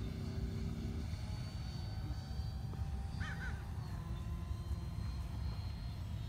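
Twin 90 mm electric ducted fans of a Freewing F-15 Eagle RC jet whining in flight, a thin high whine that drifts slightly lower in pitch, over a steady low rumble. A short bird call comes about three seconds in.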